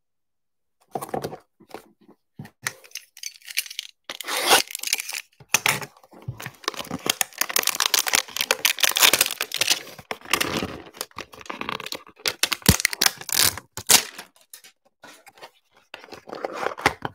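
Plastic shrink-wrap being torn and crinkled off a cardboard trading-card hanger box, with irregular crackling and tearing starting about a second in.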